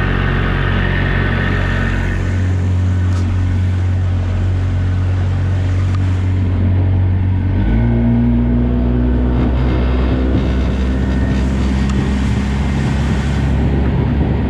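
Johnson 35 hp two-stroke outboard motor running at speed under way, a steady loud drone whose pitch steps up a little about halfway through.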